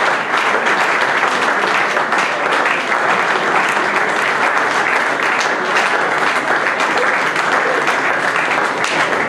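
Audience applauding steadily, a dense, even clapping that holds at one level throughout.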